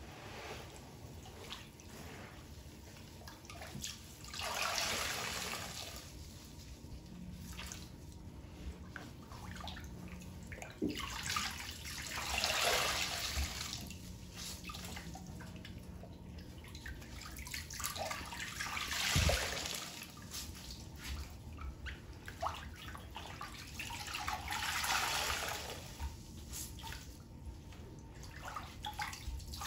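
Sudsy water gushing and dribbling out of a large foam sponge as gloved hands squeeze it over a sink holding a pool of soapy water. The sound comes in several swells a few seconds apart as the sponge is pressed and released.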